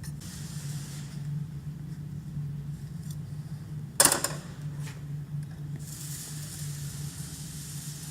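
Drill press's electric motor running with a steady low hum. A sharp clank comes about halfway through, and a steady hiss joins the hum for the last couple of seconds.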